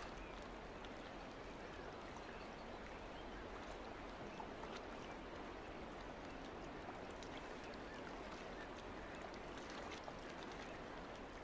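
Water lapping and trickling against the hull of a moored boat: a steady wash with faint scattered ticks.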